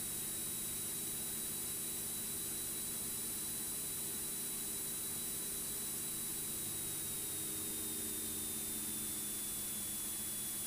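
Steady hiss of the cockpit headset audio, with the Cessna 206 Stationair's engine humming low and steady underneath as the plane flares over the runway to land.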